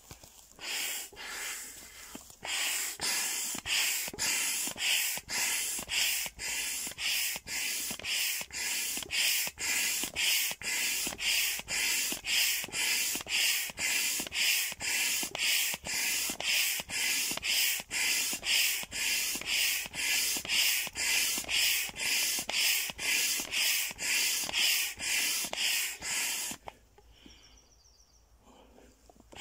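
Hand pump inflating a large vinyl inflatable duck: rhythmic whooshing strokes of air at about two a second, stopping a few seconds before the end.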